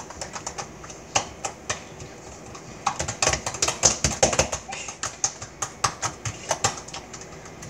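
Purple slime being kneaded and pressed flat by hand against a countertop, making quick, irregular sticky clicks and pops, busiest in the middle.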